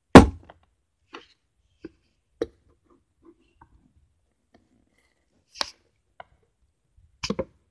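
A loud thump right at the start, then a few scattered sharp clicks and snips as scissors cut at the tape seal of a cardboard figure box, ending in a quick cluster of clicks.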